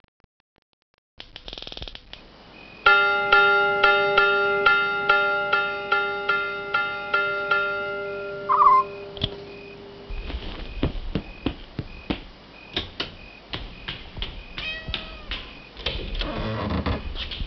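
A repeated struck note, chiming and fading about twice a second for several seconds, then a short meow, followed by a run of irregular clicks and knocks.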